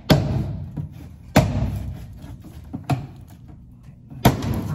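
Plastic retaining clips of an old rear bumper diffuser popping loose as it is pulled off by hand: four sharp snaps, about one every second and a half.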